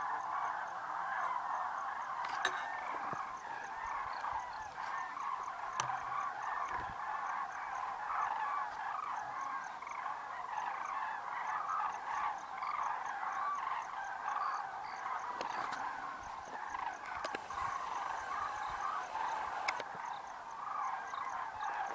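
A great flock of common cranes calling in flight: a dense, unbroken chorus of many overlapping trumpeting calls.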